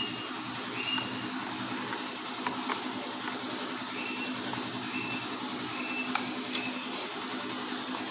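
Steel spoon stirring a thin milk-and-flour cake batter in a bowl: short high squeaks about once a second as the spoon passes, a few light clicks, over a steady low hum and hiss.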